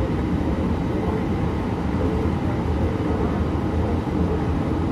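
Yongin EverLine Bombardier ART 200 light-rail train running between stations, heard from inside the car as a steady low rumble.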